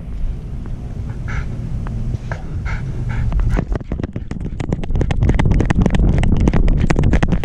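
Harness-mounted action camera on a wire-haired fox terrier: a low rubbing rumble with a few short whines from the dog, then about three and a half seconds in the dog sets off running and a fast, loud clatter of strides and loose-harness rattle takes over.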